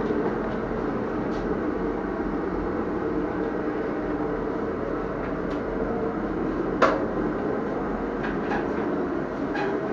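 Gas heat gun running with a steady roar, the heater used to warm and soften a PVC stretch-ceiling sheet. A sharp click sounds about seven seconds in.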